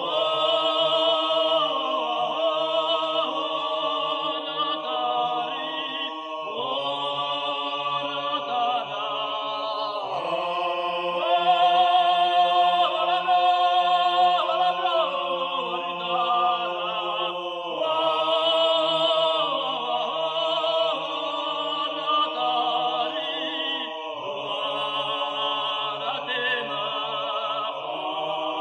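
Abkhazian folk song sung by a male soloist in long held phrases with vibrato, over a steady low drone that breaks off with each phrase.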